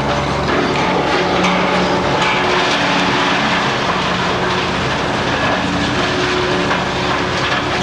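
Heavy demolition machinery, such as the wrecking-ball crane, with its engine running steadily under a broad rumble, and a few scattered knocks.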